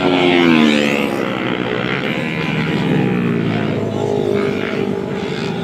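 Sport motorcycle passing close by, its engine note dropping in pitch as it goes past, then several more motorcycles running along the road.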